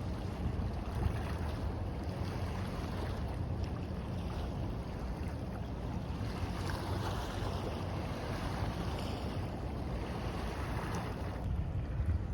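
Small sea waves washing onto a sandy beach, swelling and easing, with wind buffeting the microphone as a low rumble throughout.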